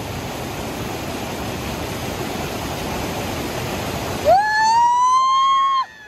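Steady rush of a waterfall, then about four seconds in a single loud high-pitched call with overtones that rises and then holds, ending abruptly after about a second and a half.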